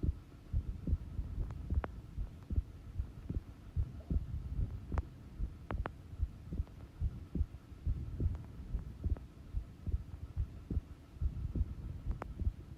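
A normal human heart beating slowly at rest: steady, repeated low thumps in an even rhythm.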